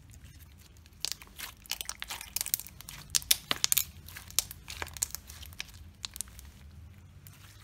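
Glossy bead-filled slime being stretched and squeezed in the hands, giving a run of sharp clicks and crunches from the beads. The clicking starts about a second in, is thickest in the middle and thins out toward the end.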